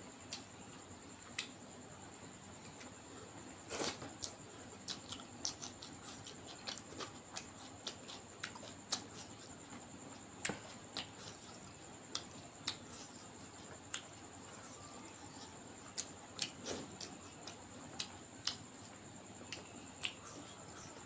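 Close-up mouth sounds of someone eating: irregular wet clicks, smacks and chewing, with two fuller smacking bites about 4 and 17 seconds in.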